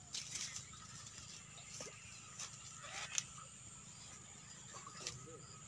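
Faint handling noise of a wet seine net being gathered at the water's edge: a few short, soft clicks and taps, the sharpest about three seconds in, over a low steady hum.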